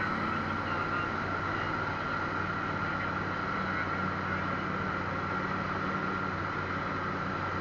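Eurofox light aircraft's engine and propeller droning steadily in flight, heard from inside the cockpit, with a steady high whine over the low drone.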